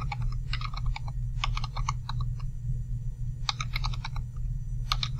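Numbers being typed on a computer keyboard into a calculator, in quick runs of several keystrokes with short pauses between.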